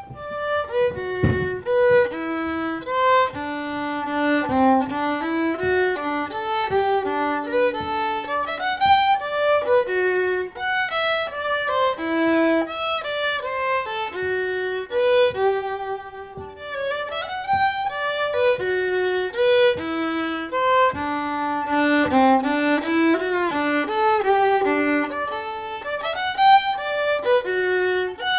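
Solo violin playing a melody, a single line of bowed notes, some held and some moving quickly, with brief dips between phrases.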